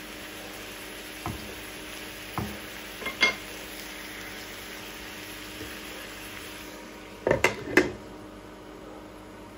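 Sliced courgette and minced chicken sizzling in a frying pan while a wooden spatula stirs them, knocking against the pan a few times. Near the end a glass pan lid clatters down onto the pan in a quick cluster of knocks, the loudest sound here, and the sizzle drops.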